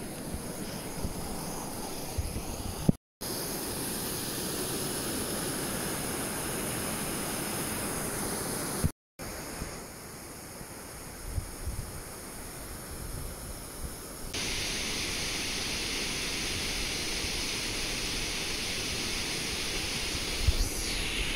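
Waterfall rushing: a steady noise of falling water with a few low thumps. It cuts out twice for a moment where clips are joined.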